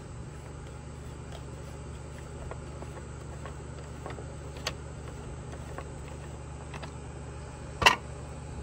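Light clicks and handling of the plastic air filter cover on a Homelite chainsaw as it is worked loose, with one sharp, loud click near the end as the cover comes off. A steady low hum runs underneath.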